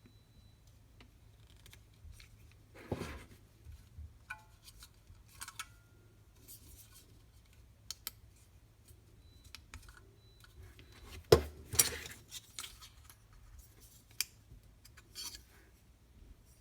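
Unboxing handling noise: packaging and small parts handled by hand, with scattered clicks, rustles and knocks and a couple of short metallic clinks. The loudest is a sharp knock about eleven seconds in.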